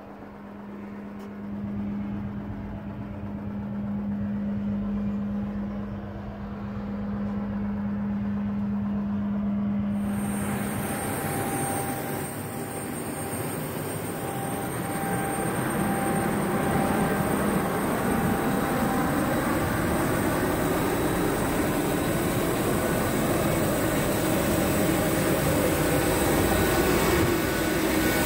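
Jet aircraft turbine noise on the ramp: after a low steady hum, the sound changes abruptly about ten seconds in to a loud rush with a steady high-pitched whine, which grows gradually louder toward the end.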